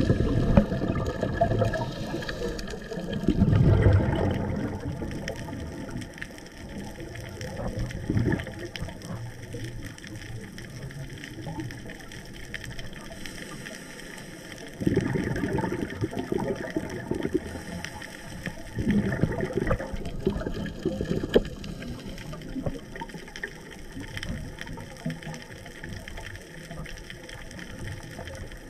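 Muffled underwater water noise, swelling into low rushing surges every few seconds, loudest near the start and about four seconds in.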